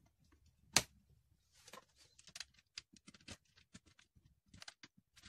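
Handling clicks at a plastic scooter wheel hub as the axle screw is started by hand: one sharp click a little under a second in, then faint, irregular small ticks and clicks.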